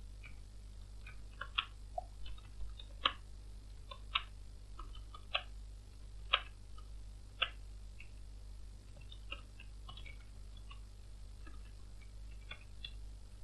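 Typing on a computer keyboard: scattered, irregular keystroke clicks as a command is typed, over a faint steady low hum.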